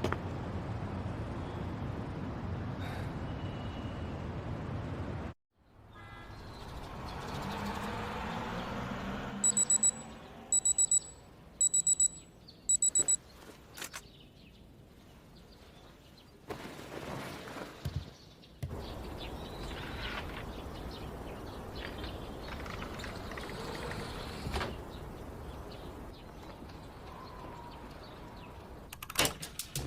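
Animated-scene ambience: a steady noise bed cuts off about five seconds in. It gives way to quieter background sound, broken by four short bursts of high electronic alarm beeping, the loudest sound, between about ten and thirteen seconds in. Scattered knocks and a faint quiet bed follow.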